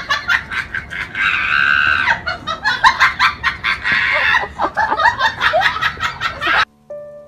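A person laughing hard in rapid bursts with high-pitched shrieks. It cuts off abruptly near the end, where soft piano notes begin.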